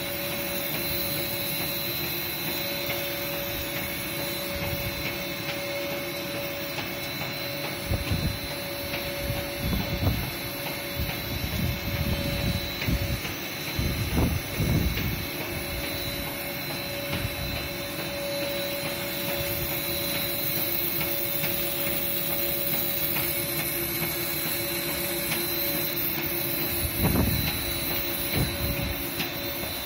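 Heavy lathe running, turning a large steel cylinder against the cutting tool: a steady machine hum with a steady mid whine and a higher whine over a hiss. Irregular low thumps come through in the middle and near the end.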